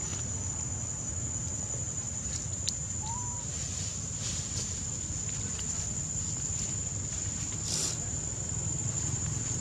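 Insects buzzing steadily at one high pitch over a low background rumble, with a few faint clicks and a brief chirp about three seconds in.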